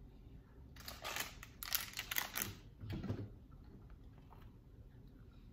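Quiet handling sounds at the table: a quick cluster of crisp crinkles and clicks about one to two and a half seconds in, then a softer, duller sound near three seconds.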